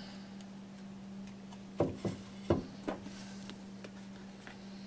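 Four soft knocks in quick succession, from ceramic shards being handled and set down on a work table, over a steady low hum.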